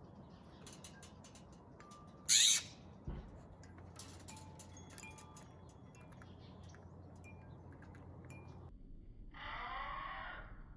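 Wild birds calling: a short, loud, harsh call a little over two seconds in, scattered faint chirps, and a longer raspy call near the end.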